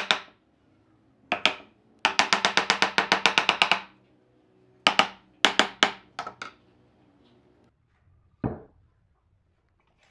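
Hammer striking the boards of a clamped glue-up panel to knock the strips flush: a single knock, then two, then a fast run of about a dozen taps, then several more spaced strikes. A single duller knock comes near the end.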